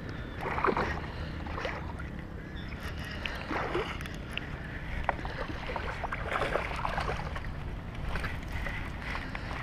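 Wind buffeting the microphone with a steady low rumble, while a hooked fish splashes at the surface several times as it is reeled in to the bank.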